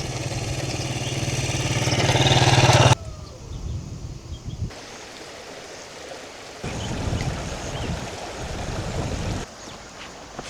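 A motor vehicle's engine running close by and growing louder, cut off suddenly about three seconds in. After that comes quieter outdoor background noise with some wind on the microphone.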